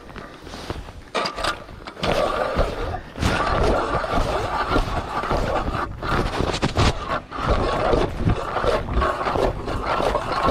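Hand-cranked ice auger's blades cutting into lake ice: a steady grinding scrape that starts about two seconds in and runs on with a few brief breaks.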